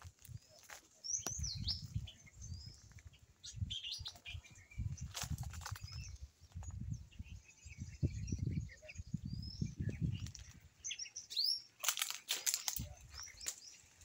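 Small birds chirping in the trees: short, quick chirps and whistled glides scattered throughout, over repeated low rumbling buffets on the microphone, with a few sharp clicks near the end.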